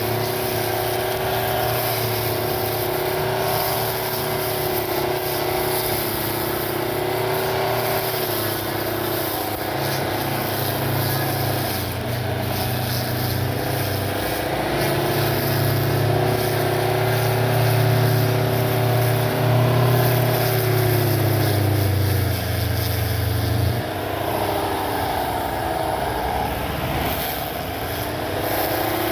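Electric motor of a homemade battery-powered lawn mower running steadily with a motor hum. In the second half its pitch sags and recovers several times.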